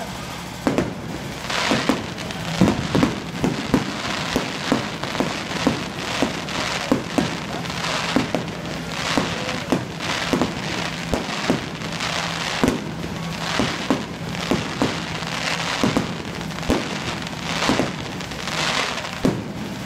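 Fireworks display: a steady run of sharp bangs from bursting shells, often several a second, with bursts of crackling hiss that swell and fade every few seconds.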